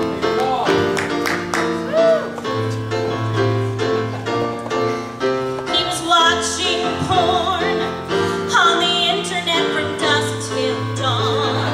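A song: a woman singing with vibrato over keyboard accompaniment of held chords and a bass line.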